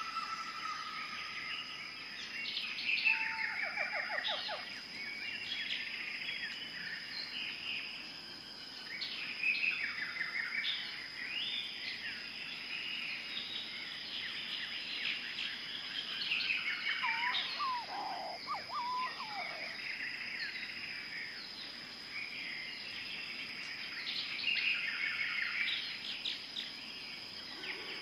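Tropical rainforest ambience: many birds calling and chirping over a steady high insect drone. Rapid trilled calls come in about three seconds in and again near the end, and a lower call rises and falls around the middle.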